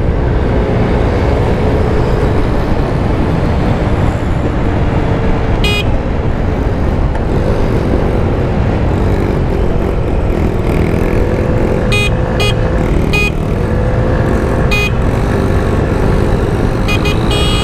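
Honda Ruckus moped engine running at speed under heavy wind rush on the handlebar camera, with a small dirt bike's engine running ahead. Several short high-pitched horn toots about six seconds in and again in a cluster near the end.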